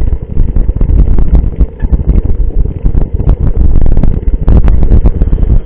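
Heavy wind buffeting on an action camera's microphone while a mountain bike is ridden, rising and falling in gusts, with frequent sharp knocks and rattles from the bike going over rough ground.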